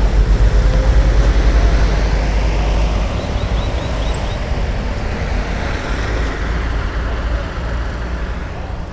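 Road traffic on a nearby street: a steady low rumble of passing vehicles that eases off over the second half.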